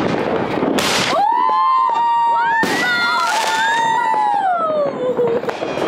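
Whistling fireworks: several shrill whistles overlap for about four seconds, wavering and falling in pitch near the end. There is a burst of crackle about a second in and another in the middle.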